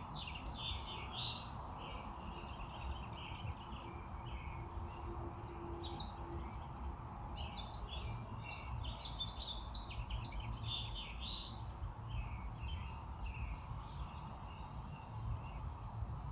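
Small birds chirping, many short calls in loose bursts, over a low steady rumble.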